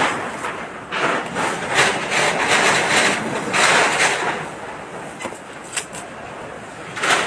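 Storm wind of a typhoon rushing in gusts, a hiss that swells and fades roughly once a second, with a few short clicks in the second half.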